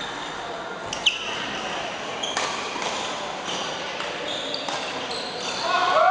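Badminton rally sounds in a large echoing sports hall: one sharp racket smack on the shuttlecock about a second in, short high shoe squeaks on the court floor, and people's voices, which grow louder near the end.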